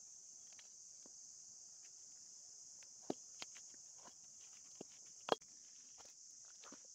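Steady high-pitched insect chorus, like crickets or cicadas, with a few sharp clicks and knocks from close handling; the loudest knock comes about five seconds in.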